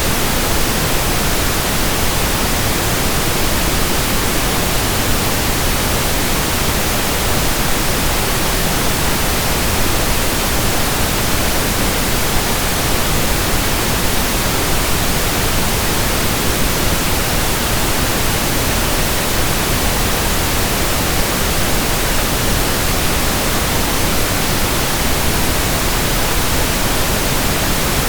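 Steady pink noise: an even, unchanging hiss across the whole range, with no rhythm or breaks.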